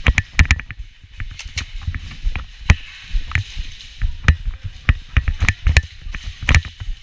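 Airsoft guns firing during play: many irregular sharp clicks and cracks of shots and BB hits, over low thuds of movement.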